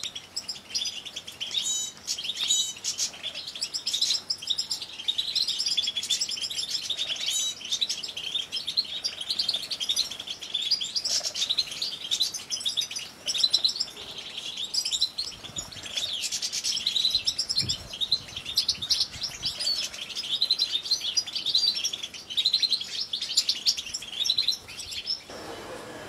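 Several European goldfinches singing and twittering together: a dense, continuous stream of quick, high chirps and liquid trills that stops abruptly near the end.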